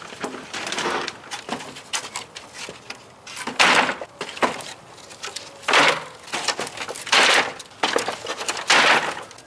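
Wooden pallets being set down one by one onto a stack, with a loud wooden clatter about every second and a half in the second half and smaller knocks and scrapes between.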